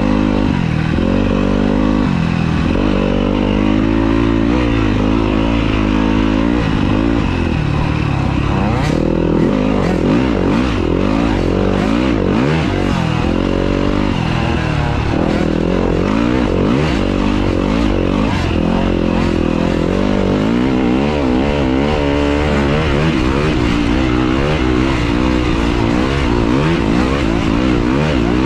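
Yamaha YZ250F single-cylinder four-stroke dirt bike engine, heard from on the bike, revving up and down over and over as it is ridden through the gears on a sandy trail. A steady hiss runs underneath, and a few sharp knocks come near the middle.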